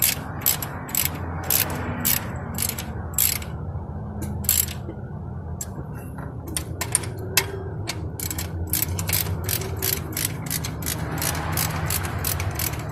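Ratchet wrench clicking in quick runs of strokes as a bolt is turned, with a pause of about two seconds after roughly three seconds before the clicking picks up again. It is working on the mounting of a replacement alternator.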